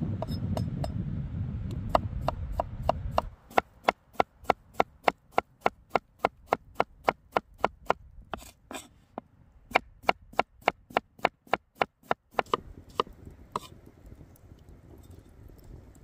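Large knife chopping raw potatoes into fry strips on a wooden cutting board: sharp, even knocks about three a second, with a short pause midway, stopping a few seconds before the end. A low rumble underlies the first three seconds.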